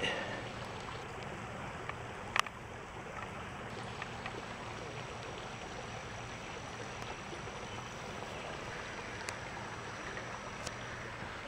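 Steady rush of a shallow stream flowing, with a single sharp click about two seconds in.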